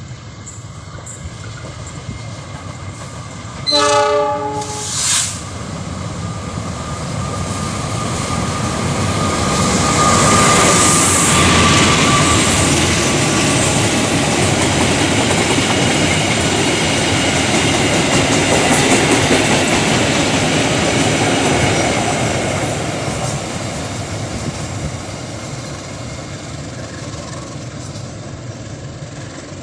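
A diesel freight train's horn sounds twice, a longer blast then a short one, about four seconds in; then the train runs past, its noise building to a peak and fading off again near the end.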